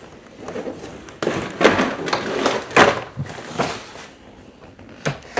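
Handling noise from things being moved about: a series of sharp knocks and clatters about a second apart, with rustling between them.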